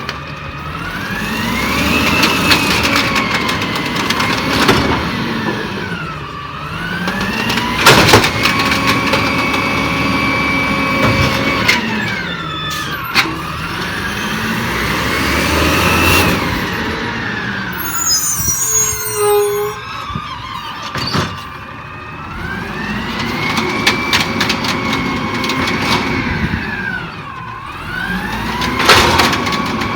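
Peterbilt 320 garbage truck's diesel engine revving up, holding and dropping back about four times as it drives the body's hydraulics. Loud clanks and bangs of metal and trash come through, the sharpest about eight seconds in and near the end, with a brief hiss and squeal around the middle.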